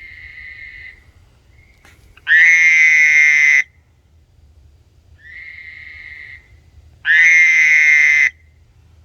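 Two frogs giving mating calls in turn: a fainter call, then a much louder call of about a second and a half from a frog close by, the pair repeating twice.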